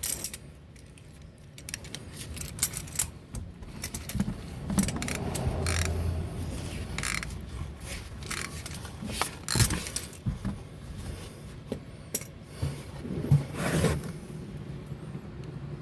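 Metallic clicks, rattles and scrapes of a ratchet and socket-type claw wrench working an oil filter loose, with scattered sharp knocks of tools against metal.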